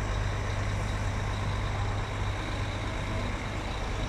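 Diesel engine of a coach bus idling and creeping forward close by, a steady low rumble.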